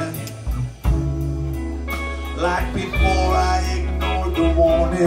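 Blues band playing live: electric guitar and bass over drums and keyboards.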